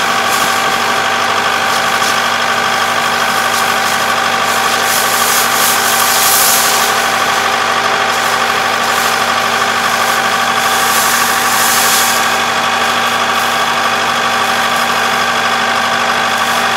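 Four-row rice combine harvester running steadily, its engine and machinery holding a constant pitch.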